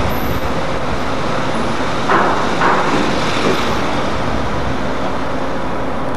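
Steady loud machinery rumble on a ferry's enclosed vehicle deck, with a brief louder surge about two seconds in.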